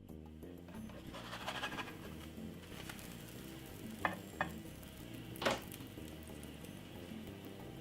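Pancake batter frying in an oiled pan, with a light sizzle. There are three short knocks, two close together about four seconds in and a louder one a second later.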